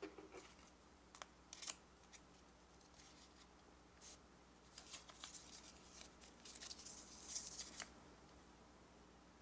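Faint rustling and crackling of a thin, curled paper leaflet being unrolled and flattened by hand, with a few light clicks; the crinkling is busiest about seven to eight seconds in.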